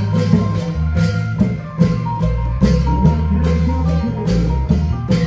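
Isan klong yao long-drum band music played through loudspeakers: deep drumming and heavy bass under a short-noted plucked melody, with a sharp high beat about twice a second.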